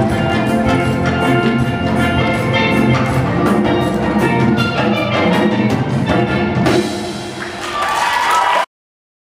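Steel pan playing a melody over a backing band with a drum kit. The music cuts off abruptly near the end.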